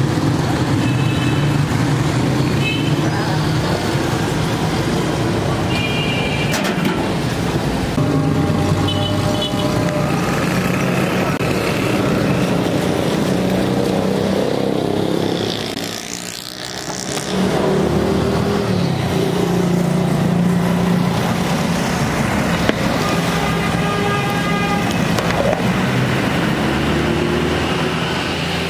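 Street traffic: vehicle engines running steadily, with several short horn toots along the way and a brief drop in the noise about halfway through.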